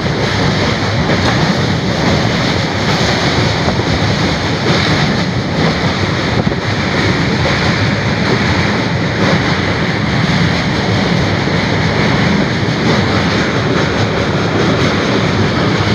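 Steady rumble of a moving passenger train, with wind buffeting the microphone.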